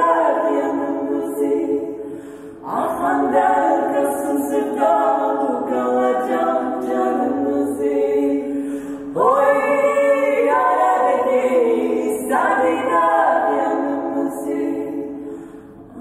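Three women's voices singing a Turkish Black Sea folk song a cappella in close harmony, in several long phrases with short breaks between them. The last phrase fades out near the end.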